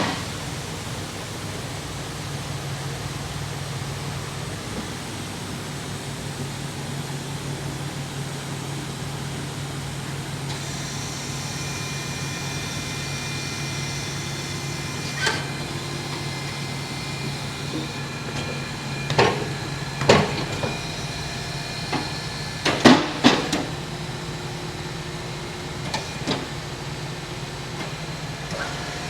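Steady low mechanical hum, like an idling engine, with a few sharp metallic clanks and knocks scattered through the second half, typical of tools and wheel parts being handled during a truck tire change.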